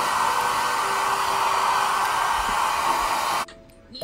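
Hand-held hair dryer blowing at a steady speed, switched off suddenly about three and a half seconds in.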